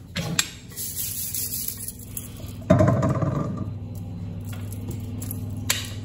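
Pastry-making handling noise on a wooden worktop: light taps early on, then a loud knock with a short metallic ring a little before halfway as metal kitchenware meets the board, followed by steady rolling of pastry dough with a stainless-steel rolling pin.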